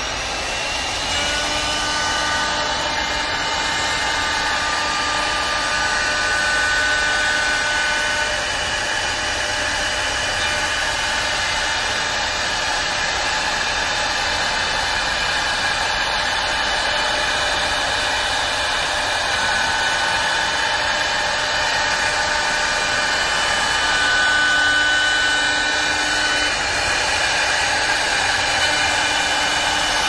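CNC wood-turning lathe cutting a wooden baluster: the high-speed router spindle gives a steady whine over a constant hiss of wood being cut. The whining tones come in about a second in and fade and return as the cut goes on.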